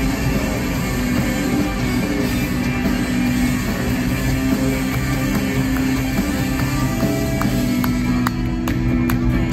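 Live rock band playing an instrumental passage: electric guitars, bass guitar and drum kit, loud and amplified in an arena.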